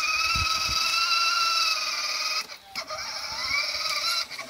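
Electric drive-motor whine of a kids' battery-powered ride-on toy Lamborghini, steady, cutting out about two and a half seconds in and then rising in pitch as the car gets moving again.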